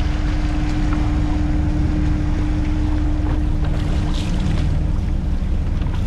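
Steady low machine rumble with a constant hum that fades out about four and a half seconds in, over water sloshing and splashing in tubs of live fish, with a louder splash about four seconds in.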